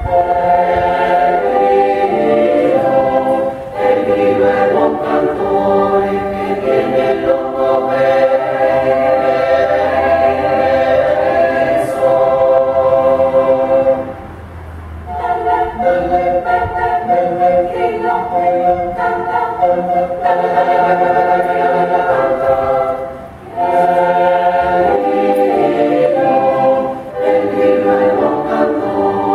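Mixed choir singing a Renaissance frottola together with a consort of recorders, in phrases separated by short pauses, the longest about halfway through.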